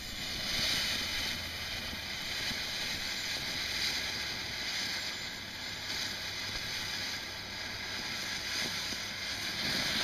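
TNT Sunflower ground firework burning, with a steady hiss as it sprays sparks and pours out smoke.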